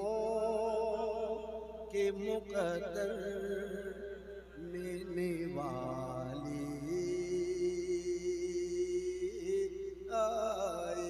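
A man singing an Urdu naat solo, drawing the words out into long held notes with a wavering, ornamented pitch. One note is held for about three seconds near the end.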